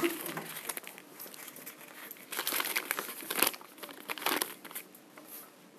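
A sheet of paper crinkling and crackling as it is crumpled and handled, in short irregular spells, the loudest about two to three and a half seconds in.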